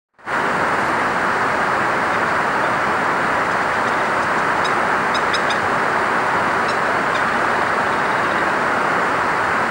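Crested kingfisher giving a quick run of short, sharp, high call notes about five seconds in, with a couple more near seven seconds, which the uploader takes for a male's courtship call to a female. A loud steady rushing noise runs underneath throughout.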